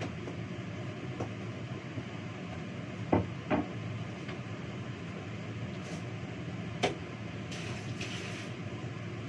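Dishes and utensils handled at a kitchen sink: a few sharp knocks and clatters, two close together about three seconds in and one near seven seconds, over a steady low hum.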